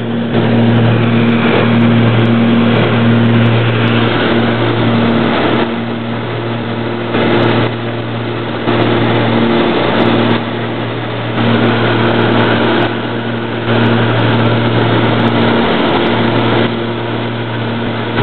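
Aircraft engine droning steadily in flight, heard inside the cabin as a steady low hum with a rushing noise over it. The loudness drops and comes back every second or two.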